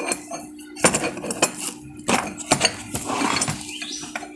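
A steel bit clinking and knocking against the chuck of an electric demolition hammer as it is fitted and locked in, several sharp metallic knocks.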